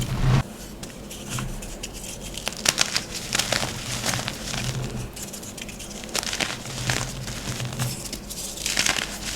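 Blocks of gym chalk being crushed and crumbled by hand: a steady run of small dry crunches and crackles, with a louder crunch at the very start and another near the end.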